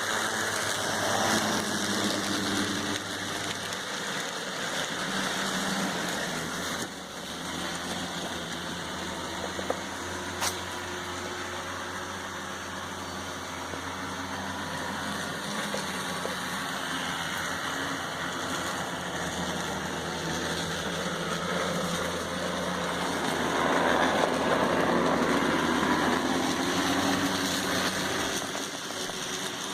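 N scale model train running on its track: a steady whir from the small electric motor and wheels. Two sharp clicks come about ten seconds in, and the sound grows louder for a few seconds past the two-thirds mark.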